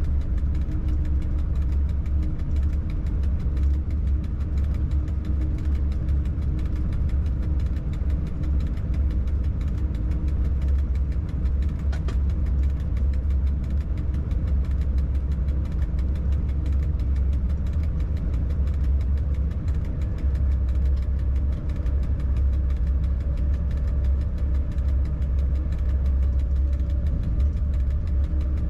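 Steady low rumble and hum inside a freight locomotive's driving cab, even throughout with no sudden sounds.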